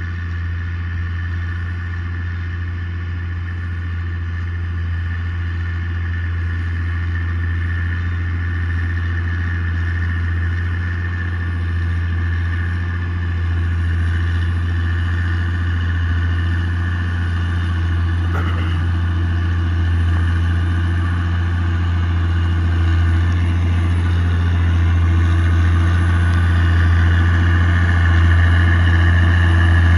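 Tractor engine running steadily under load while pulling a subsoiler through the soil, a constant low drone that grows gradually louder.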